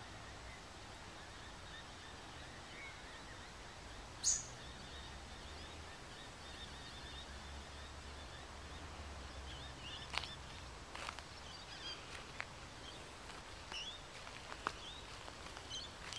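Faint outdoor garden ambience: a steady hiss with a low hum, and one sharp high chirp about four seconds in. From about ten seconds on come scattered light footsteps on dry soil and small bird chirps.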